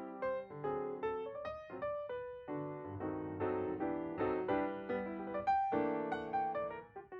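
Background piano music: a melody of struck notes over chords at a moderate pace.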